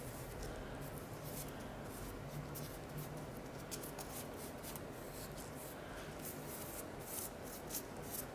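Faint scratchy rubbing and handling noises, many small scrapes throughout, as excess grout is worked off the edges of a mosaic-covered polystyrene shape.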